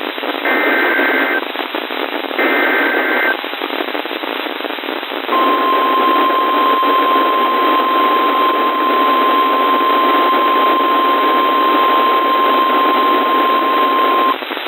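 EAS/SAME digital header bursts received over a hissy radio: two short buzzy data bursts about a second apart, the last two of a header's three repeats. After about two seconds of static, the steady single-pitch 1050 Hz NOAA Weather Radio warning alarm tone sounds for about nine seconds and cuts off near the end, heavy radio static underneath throughout.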